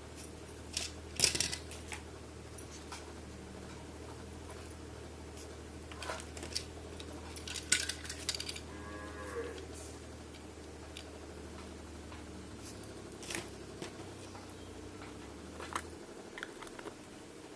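Plastic toy pieces and packaging handled, with scattered light clicks and two louder crinkling rustles, over a steady low hum. About 9 s in there is a short wavering squeak.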